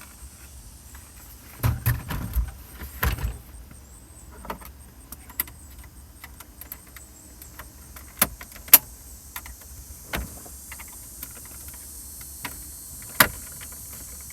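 Scattered clicks and knocks of hard plastic as a screwdriver pries the 4x4 selector switch out of the dash bezel. A cluster of rattling knocks comes about two to three seconds in, then single sharp clicks, the loudest near nine seconds.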